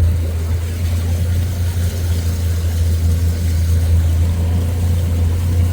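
Jet ski engine running steadily under way on the water, a loud, low, even drone.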